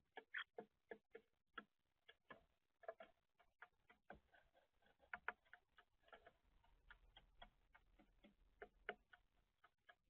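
Faint, irregular quick taps and clicks of European starlings pecking at food in a tray feeder.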